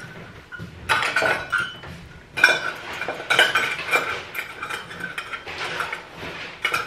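Cutlery and metal kitchen utensils clinking and clattering as they are handled and sorted, a busy run of clinks starting about a second in.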